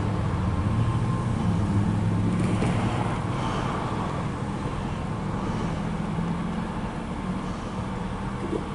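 Low, steady engine rumble that fades slowly.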